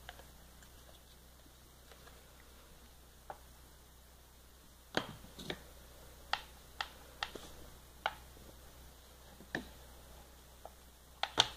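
Light, scattered clicks and taps from art supplies being handled, plastic paint tubes and a plastic mixing palette knocked against things, over quiet room tone. The taps come about a dozen times at uneven intervals, most of them from about five seconds in, with a close pair near the end.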